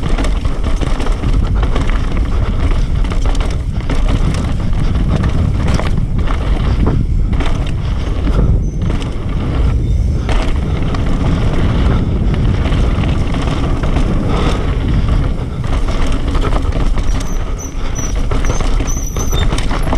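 Mountain bike (YT Industries Capra) running fast down a rough downhill trail: continuous wind on the microphone, tyre roar on dirt and steady rattling and knocking of the bike over roots and rocks. The noise thins briefly a few times in the middle.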